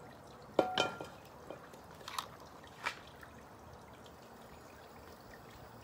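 A frying pan set down on the metal grate of a portable gas stove: two sharp clanks with a brief ring just under a second in, then two lighter knocks about two and three seconds in.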